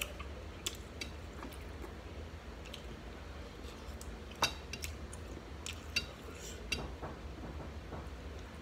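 Eating at a table: a handful of sharp clicks and clinks of fingers and food against a dish, spaced a second or more apart, the loudest about halfway through, over a steady low hum.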